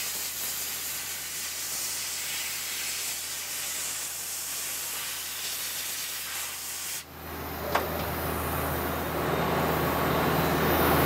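Compressed-air blow gun hissing steadily as it blasts cutting oil off a freshly machined screw, stopping abruptly about seven seconds in. Afterwards a steady machine hum remains, with one click.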